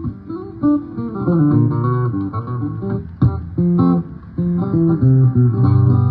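Guitar being played: a run of separate picked notes and chords, with a sharp struck accent about three seconds in.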